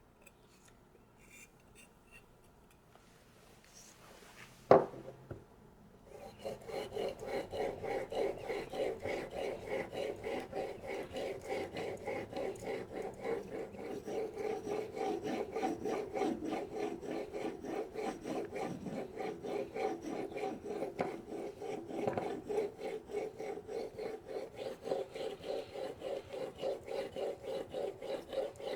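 A knife in a sharpening guide stroked back and forth on a whetstone: a steady rhythm of rasping strokes, about three a second, starting about six seconds in. Before that it is quiet, apart from a single sharp knock about five seconds in.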